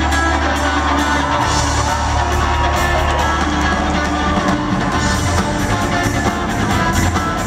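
Live rock band playing loud, with electric guitars, bass and a steady drum beat, heard from within the crowd.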